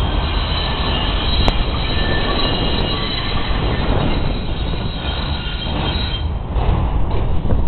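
Elevated subway train running along steel track, a steady rumble with the wheels squealing in several high tones; the squeal fades about six seconds in.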